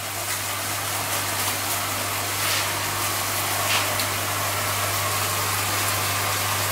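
Minced meat sizzling in oil in a frying pan: a steady hiss with a few faint pops, over a steady low hum.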